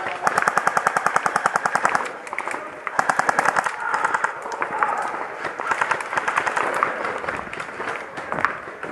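Airsoft guns firing on full auto: a long burst of about a dozen shots a second for nearly two seconds, a second burst about three seconds in, then shorter bursts and single shots.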